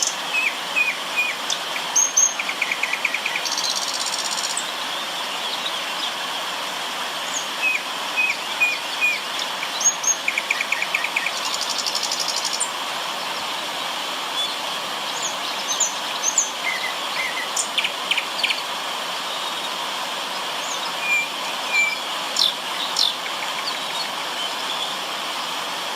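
River water running steadily, with several birds chirping and giving quick rattling trills over it.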